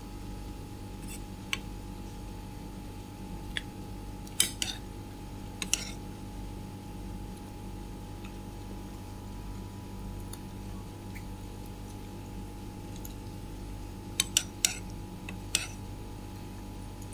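Metal spoon tapping and clinking against a bowl while scooping: a few sharp taps spread over the first six seconds, then a quick cluster of them near the end, over a steady faint hum.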